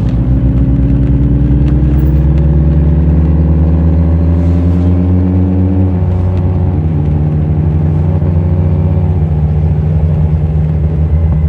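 Kawasaki Z1000's inline-four engine under way. Its pitch rises steadily under acceleration for about six seconds, drops sharply at an upshift, then holds steady at lower revs.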